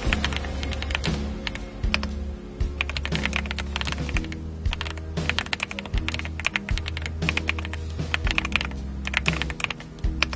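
Typing on an AULA F75 gasket-mounted mechanical keyboard: quick runs of key clicks in bursts with short pauses between them.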